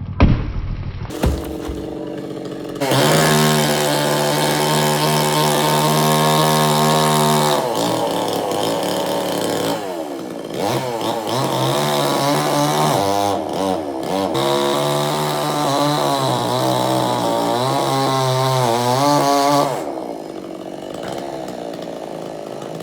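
Chainsaw revved up about three seconds in and held at high speed, its pitch dipping and wavering several times as it cuts into the tree's wood. Near the end it drops back to idle.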